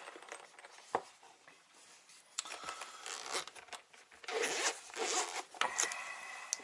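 Zipper on a hard-shell carry case being pulled open in two main strokes, after a sharp click about a second in.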